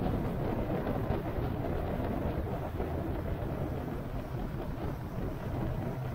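Vehicle engine running steadily at cruising speed, with a constant rumble of wind and road noise.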